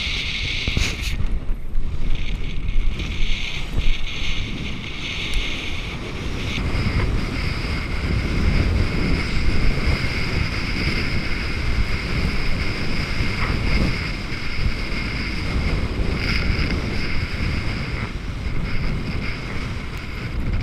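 Wind buffeting an action camera's microphone and water rushing past a kiteboard riding at speed. A steady high-pitched whine holds over the noise from about a third of the way in.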